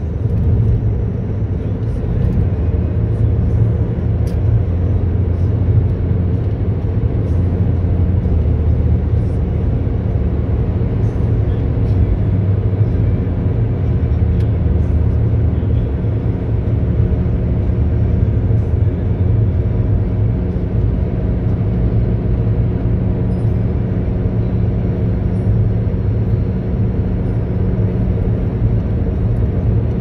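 Steady road and engine noise inside a car's cabin at highway speed, around 90 to 100 km/h: a continuous low rumble with a constant drone.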